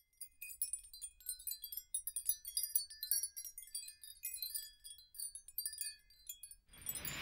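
High chime-like tinkling: many short ringing notes, scattered irregularly, with no steady beat. Near the end a steady rush of wind and water noise comes in.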